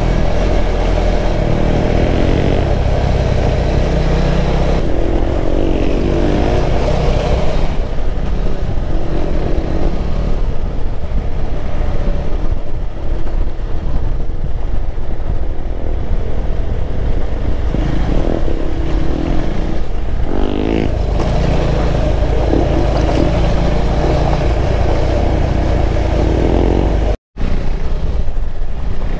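KTM 390 Adventure's single-cylinder engine running under way on a dirt road, its pitch rising and falling with the throttle, over steady wind rumble on the microphone. The sound cuts out completely for a moment about two seconds before the end.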